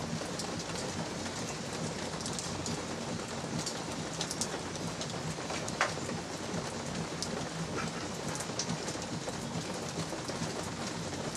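Steady light rain falling, with scattered raindrops ticking.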